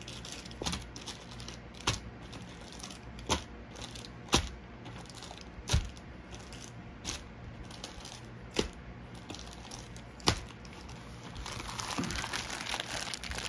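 About eight sharp clicks and taps, spaced a second or so apart. Then, from about 11 seconds in, a rising crinkle of thin plastic bags holding decks of game cards being handled.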